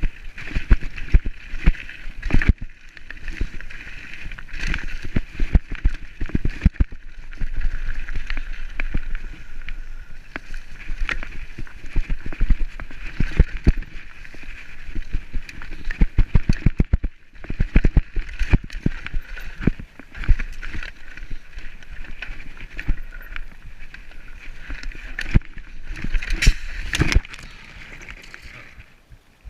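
A bicycle ridden fast down a rough track: the frame, chain and tyres rattle and knock continuously over bumps, over a steady rushing hiss. The noise drops away abruptly near the end.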